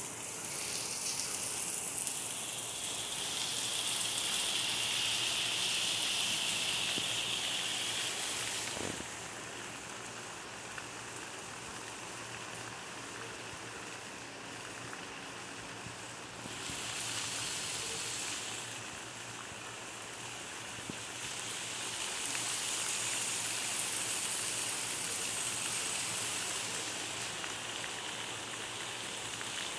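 Heavy rain falling steadily, a continuous hiss that swells louder and eases off in slow waves, with one faint click about nine seconds in.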